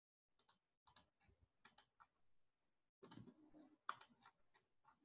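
Near silence broken by a string of faint, irregular clicks of a computer mouse.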